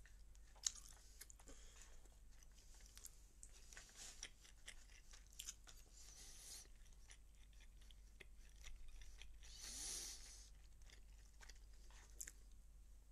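Faint chewing and crunching of a person eating close to the microphone, with small scattered clicks and mouth noises, and a soft breathy hiss about ten seconds in.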